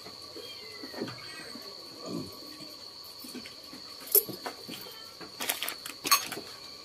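A steady high-pitched insect trill, typical of night crickets, with light rustling, and a few sharp clinks and knocks from bowls of food being handled, the first about four seconds in and a cluster of them over the next two seconds.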